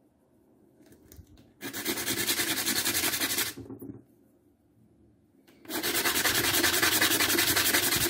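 A small piece of old brick sanded down by hand to shape a miniature brick: two spells of fast, even scraping strokes, the first about two seconds long starting a second and a half in, the second starting about halfway through.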